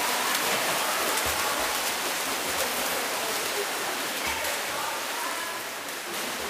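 Steady splashing and churning of water from water polo play in an indoor pool hall, with faint voices calling in the background.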